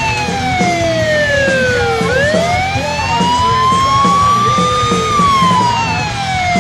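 Siren wailing slowly: its pitch falls for about two seconds, rises steadily for about three, then starts falling again near the end.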